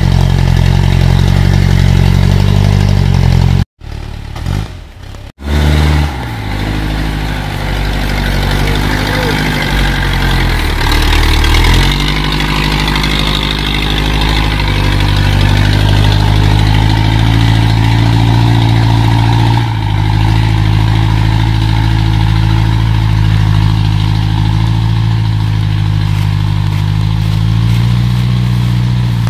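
Off-road vehicle engine running steadily at low revs. The sound cuts out briefly about four seconds in, then the engine note shifts up and down before settling again.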